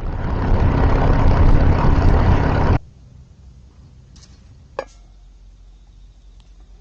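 Harley-Davidson Sportster's V-twin engine running loudly with a deep rumble, cutting off abruptly about three seconds in. A single short sharp click comes a couple of seconds later.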